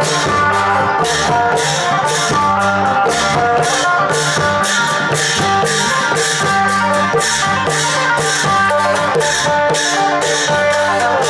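Isan long-drum (klong yao) band music: hand-struck long drums keep a steady beat of about two strokes a second under a plucked-string melody.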